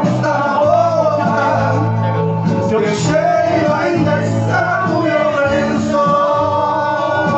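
A song playing: a man singing over instrumental accompaniment.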